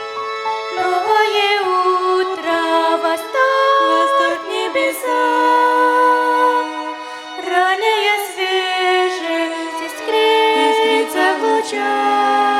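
Violin ensemble playing a slow melody in harmony, several parts moving together from note to note.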